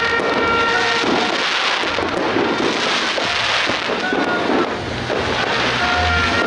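Fireworks and firecrackers going off in a dense, continuous barrage of bangs and crackle.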